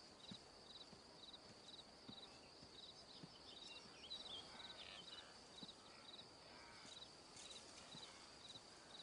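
Faint insect chorus: a steady high trill, with a cricket chirping in short pulsed bursts about two or three times a second. A few faint bird chirps come in around the middle.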